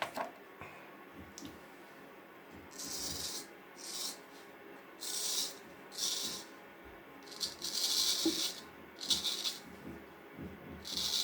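Vintage straight razor scraping through beard stubble in a series of short strokes, about eight irregular scratchy rasps, as the freshly restored blade is shave tested.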